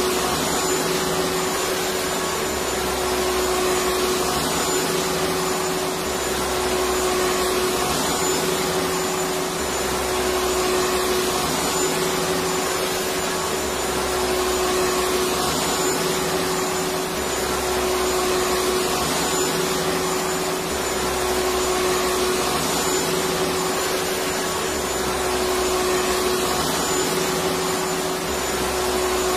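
Electric vacuum cleaner running steadily: an even rush of air with a constant motor whine.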